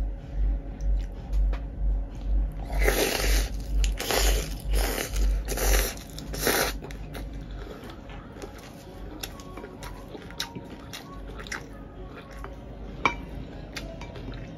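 Crisp chewing of a mouthful of fresh lettuce salad, about five loud crunches, then the wooden fork and spoon clicking and scraping on a ceramic plate, with one sharp click near the end.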